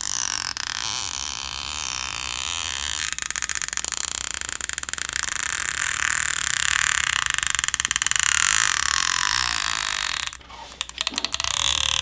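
Black Shark 2's stretch-release battery adhesive pull tab being drawn out from under the battery, creaking and crackling as the adhesive stretches, with a long squeal that falls steadily in pitch. The tab is coming out whole, freeing the battery.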